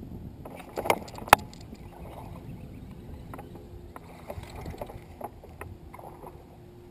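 Water lapping against a small boat's hull, with a few sharp knocks and clicks, the loudest about a second in.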